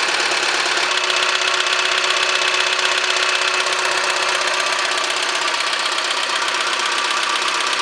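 Opel Z16XEP 1.6 16-valve four-cylinder petrol engine running with a rapid, steady knocking from the intake manifold area, which grows stronger once the engine is warm. It is typical of this engine's intake manifold working loose inside.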